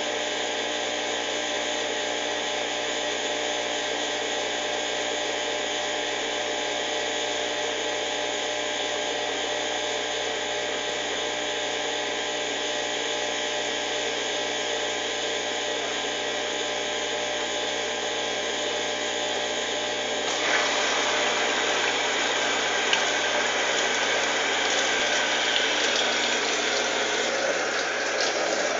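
Consul washing machine in its intermediate spin, the motor and drain pump running steadily as water is pumped out. About two-thirds of the way in the sound gets louder and harsher, with a couple of brief knocks.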